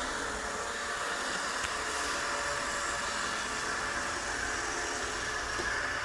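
Robot vacuum cleaner running with a steady, even whir of its motor and suction.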